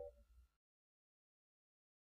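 Near silence: the last traces of the song's final chord fade out within about half a second, then the track is completely silent.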